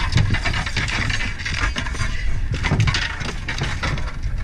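A large cobia thrashing on a fiberglass boat deck: repeated rapid knocks and clattering with a low rumble underneath.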